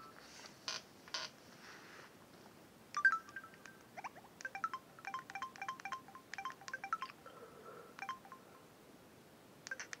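Samsung SGH-P910 mobile phone key tones: a quick run of short electronic beeps as its menu keys are pressed to scroll through the file manager, after a couple of soft clicks near the start.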